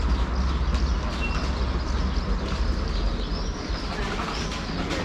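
Steady low rumble with birds chirping now and then, the chirps mostly in the second half.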